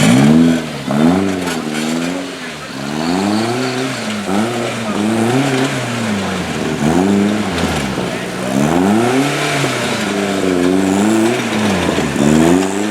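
Off-road 4x4's engine revving hard in repeated rises and falls, about one a second, as the driver works the throttle.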